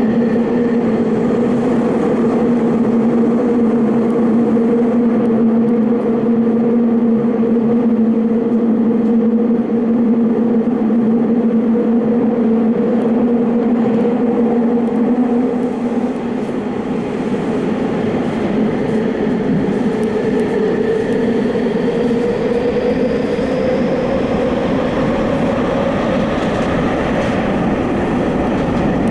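Subway train running between stations, heard from inside the car: steady rolling noise with a motor hum held at a constant pitch. From a little past the middle the hum's pitch climbs steadily as the train gathers speed.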